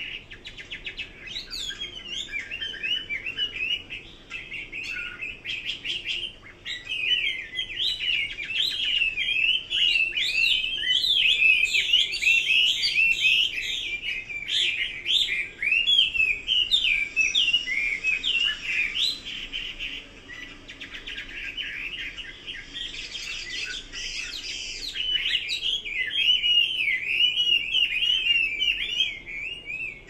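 Caged Chinese hwamei singing a long, varied song of rapid, rising and falling whistled phrases, with no pause. It is loudest around ten seconds in and again near the end.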